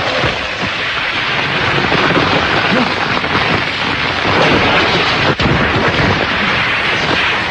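Anime sound effect of a black-flame dragon attack: a loud, continuous rumbling roar of energy, with a brief drop-out about five and a half seconds in.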